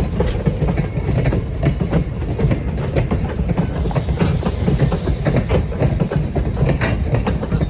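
Train pulled by steam locomotive 611 rolling past, a steady low rumble with wheels clicking and clacking over the rail joints.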